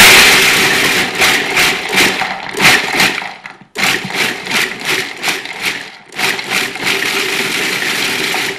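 Food processor running in pulses, its blade chopping pecans and dates into a crumbly crust mix, with hard pieces rattling around the bowl. The motor cuts out briefly twice and stops near the end.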